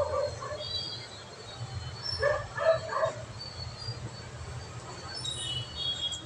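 A dog barking three times in quick succession, a little over two seconds in.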